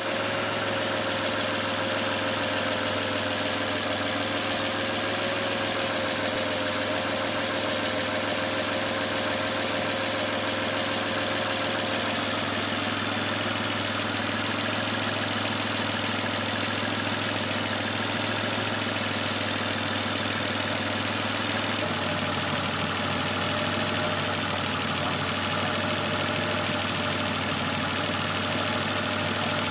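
Chevrolet Epica 2.0 engine idling steadily, with the hydraulic lifter tapping the owner points out: worn or oil-starved lifters.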